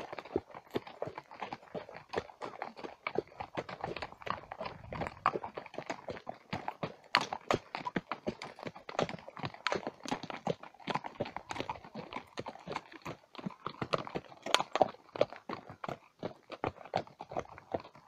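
Clip-clop of several horses' hooves walking on a stony dirt track: a dense, uneven run of hoof knocks.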